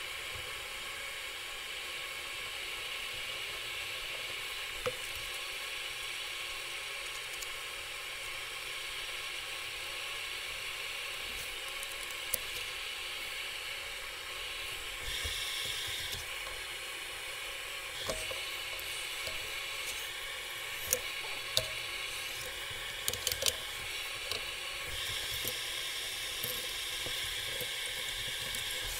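A steady hiss throughout, with a few sharp clicks and knocks in the second half as spring clamps and quick-grip clamps are snapped onto a glued-up plywood pattern and set down on a steel bench.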